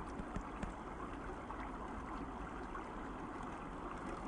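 River water flowing in a steady, even rush through and around a sluice box set in a shallow stream.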